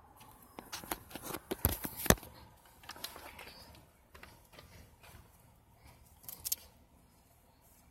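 Handling noise: scattered clicks, knocks and light rustling, busiest in the first three seconds, then a couple of sharp clicks about six and a half seconds in.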